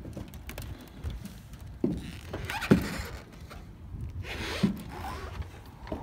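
Footsteps on a Beechcraft Bonanza's wing walk: a few separate heavy thuds about two, three and four and a half seconds in, with rustling hiss between them.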